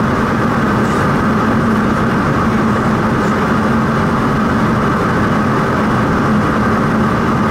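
General Electric CT7-9B turboprop engine of a Saab 340B Plus running steadily with its propeller turning, heard from inside the cabin. It makes a steady drone with a low hum and a higher whine.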